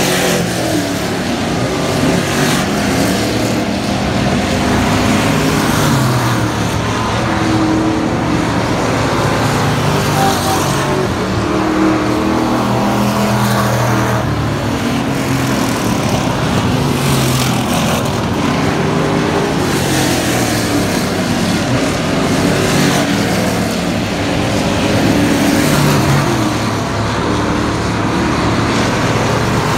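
Several Thunder Bomber dirt-track stock cars running hot laps together, their engines rising and falling in pitch as they power down the straights and ease off into the turns.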